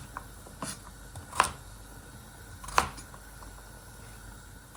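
Knife cutting through a carrot on a cutting board: a few sharp, unevenly spaced knocks of the blade striking the board.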